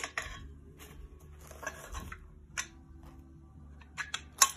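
Scattered clicks and light knocks of amplifier kit parts being handled and set down on the metal chassis, sharpest at the start and again near the end, over a faint low hum.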